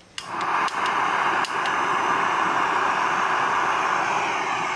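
Canister backpacking stove being lit: a few sharp igniter clicks in the first two seconds as the burner catches, then the steady hiss of the gas flame.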